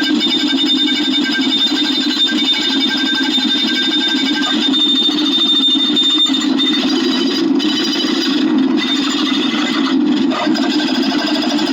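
Dense, rapid clicking that runs together into a steady, buzzy noise, with a thin high tone that fades out about seven seconds in.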